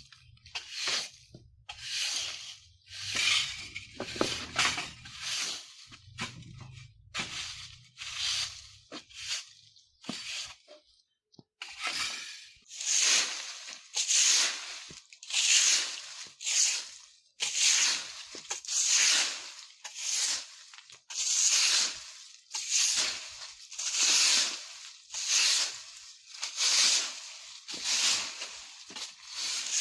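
A broom sweeping leaves on the ground in repeated rustling strokes. The strokes are soft and uneven at first, pause briefly about ten seconds in, then come louder and regular, about one a second.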